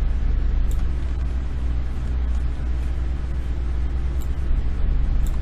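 Steady low hum with a hiss over it, and a few faint ticks.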